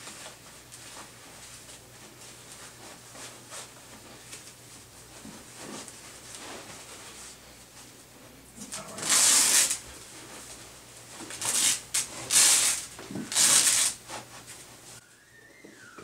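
Straps being pulled and fastened across a patient on a plastic backboard: quiet rustling and handling, then three loud tearing bursts in the second half as the straps are drawn tight.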